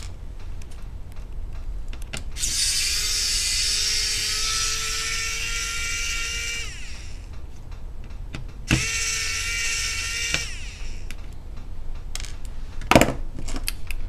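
Small electric screwdriver whining steadily as it backs out the screws holding a laptop's SATA hard drive, in two runs of about four seconds and under two seconds. A sharp click sounds near the end.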